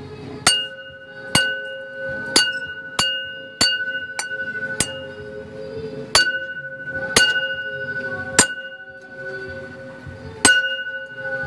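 A small ringing object, bell- or glass-like, struck about ten times at uneven intervals. Each sharp strike leaves the same clear, lingering tone, which rings on into the next. It serves as the sound cue in an animal-conditioning task.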